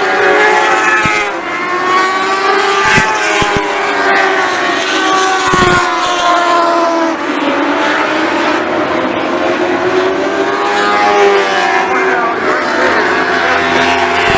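Several lightning sprint race car engines running hard together, their notes rising and falling as the cars accelerate down the straights and lift for the turns.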